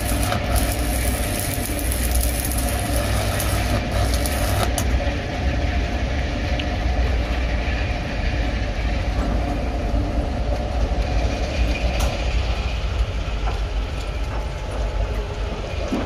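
Arc welding crackling and hissing for about the first five seconds, then stopping, over a steady low machinery hum and rumble that runs on throughout.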